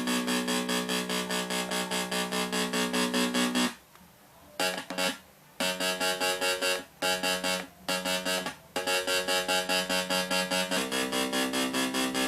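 Electronic sound-effects synthesizer giving a buzzy pitched tone that pulses about six times a second. It cuts out briefly a few times midway and changes pitch near the end.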